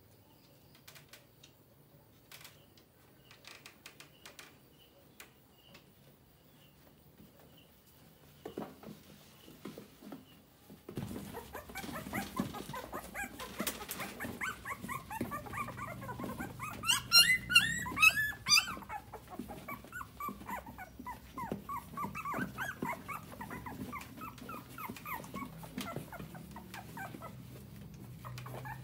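Dog whimpering in many short, high-pitched squeaks. It starts about a third of the way in and peaks in a louder burst of higher squeals a little past the middle.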